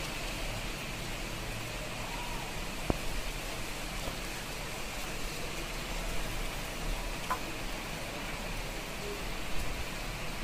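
Heavy rain falling steadily in a continuous hiss, with a low rumble beneath and a couple of faint ticks.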